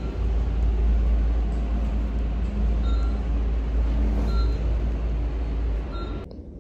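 Hospital elevator car travelling: a steady, heavy low rumble of the ride, with a short high beep four times. The rumble cuts off suddenly near the end.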